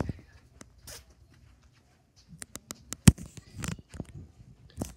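Handling noise from a handheld phone camera being carried and moved: scattered rustles and small knocks, with one sharp knock about three seconds in.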